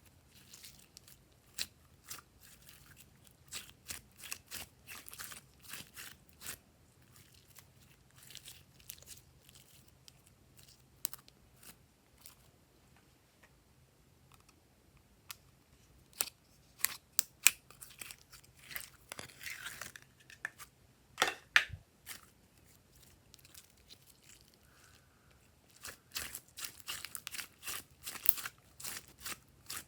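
Glossy slime being squeezed, stretched and mixed by hand: clusters of sticky clicks, pops and crackles, with a couple of quieter pauses.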